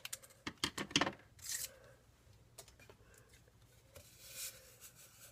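Scissors snipping open a paper drink-mix packet, a few quick sharp clicks about a second in, followed by soft rustling hiss as the packet is handled and the powder is shaken out into a cup near the end.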